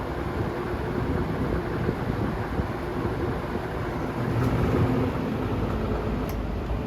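Vintage Pencrest 100 box fan running: a steady rush of moving air over a low motor hum.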